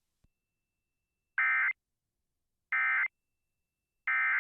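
Emergency Alert System end-of-message code: three identical short warbling digital data bursts, each about a third of a second long and a little over a second apart, signalling that the alert broadcast is over.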